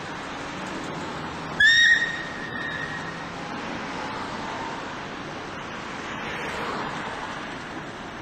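A short blast on the Fowler traction engine's steam whistle about a second and a half in: one high note, loud for half a second and then dying away. Steady running and road noise continues under it.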